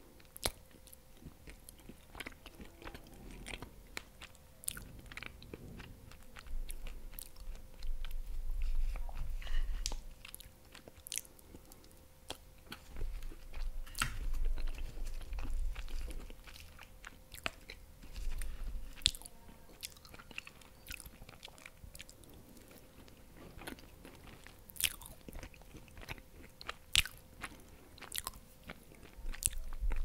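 Close-miked mouth sounds of someone eating soft dessert: wet chewing and many sharp mouth clicks and smacks, with a low muffled rumble in a few stretches, and a spoon or fork working through cake in a plastic container now and then.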